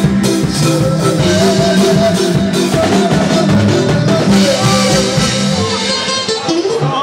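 Loud dance music with a steady beat, bass line and guitar.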